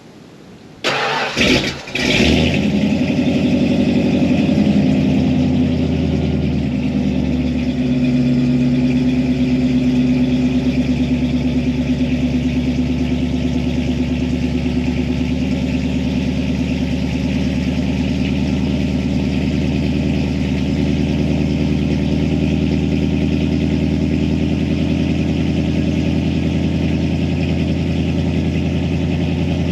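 1993 Ford Lightning's stock 5.8-litre V8 cranked for about a second and catching on a cold start in about 12°F weather after sitting a week and a half, then running at a steady fast idle, settling slightly a few seconds after it catches.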